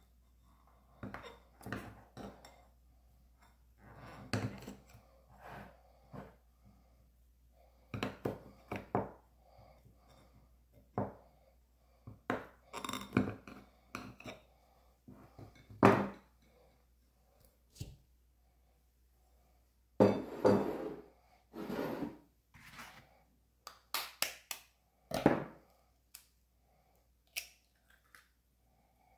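Kitchen utensils and bowls being handled: scattered knocks and clinks with a few short scraping sounds.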